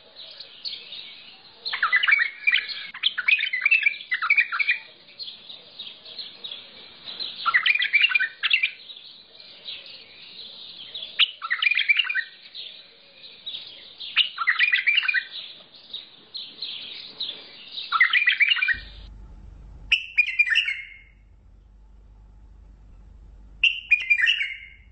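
A Mandalawi bulbul singing: short, loud warbled phrases repeated every few seconds. Behind the song a steady hiss drops out about two-thirds of the way through and a low hum takes its place.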